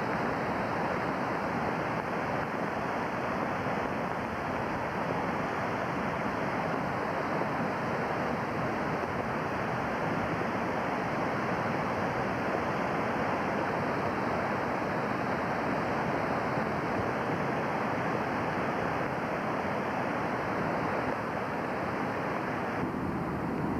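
Flooded North Fork Wilson River rushing past in high water: a dense, steady rush of moving water with no breaks.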